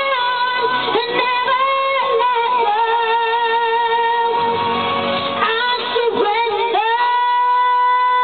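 A young female singer belting a ballad into a microphone, wavering with vibrato on some notes and holding one long steady note near the end.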